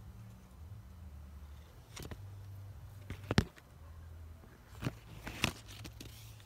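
Handling noise from a phone camera moved in among persimmon leaves and branches. A few sharp clicks and rustles, the loudest about three and a half seconds in and two more close together near the end, over a low rumble that comes and goes.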